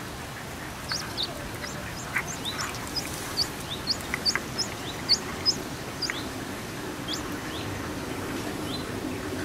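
Newly hatched Antwerp Belgian bantam chicks peeping: a run of short, high, falling peeps, two or three a second, starting about a second in.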